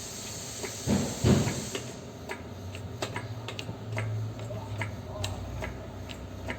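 Shop press being worked to push a new front wheel bearing into a steering knuckle: two short noisy bursts about a second in, then a low steady hum with scattered light clicks.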